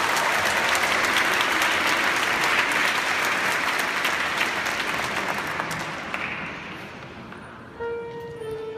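Audience applauding, the clapping dying away over the last few seconds. Near the end a few held musical notes begin.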